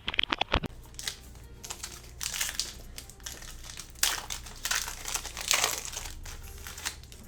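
Plastic wrapping of a sports-card blaster box and its packs being crinkled and torn open, in irregular crackling spurts.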